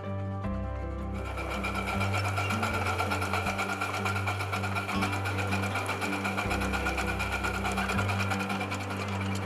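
A 4¾-inch-gauge live steam locomotive running on its track, with a fast, even mechanical clatter that starts about a second in. Background music plays underneath.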